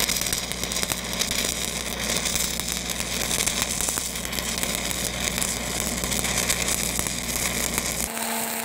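Stick-welding arc of a 3/16-inch downhill electrode laying the cap pass on a steel pipe-to-flange joint: a steady crackling sizzle, with a low hum underneath.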